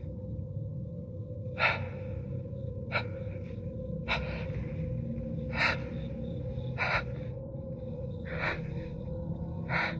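A person's short, noisy breaths, seven of them about every second and a half, over a steady low hum.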